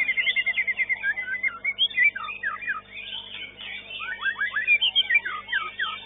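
White-rumped shama (murai batu) singing: a fast run of repeated notes ends about a second in, followed by sharp falling whistles, several in quick succession around four seconds in, over a faint steady hum.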